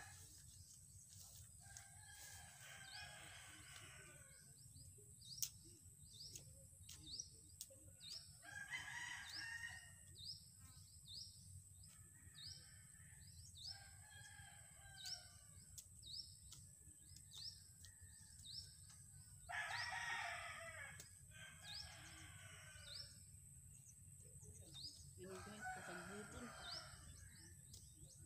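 Faint rooster crowing, heard about five times, each crow lasting a second or two. Under it a small bird gives a short rising high chirp about once a second.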